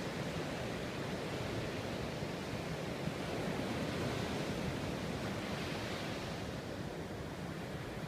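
Ocean surf breaking and washing up a sandy beach: a steady rush that swells a little about midway.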